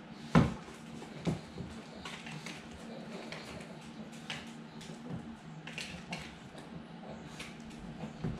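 A mixing utensil stirring thick buttermilk banana-bread batter in a glass mixing bowl, knocking and clinking against the glass now and then, the loudest knock about half a second in.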